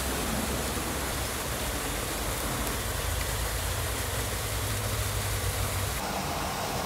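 Steady rushing outdoor background noise with no distinct events, and a low hum underneath it in the middle.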